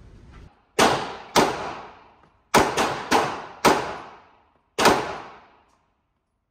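Six semi-automatic pistol shots, each ringing on in the echo of an indoor range: two shots, a short pause, three in quick succession, then a last one.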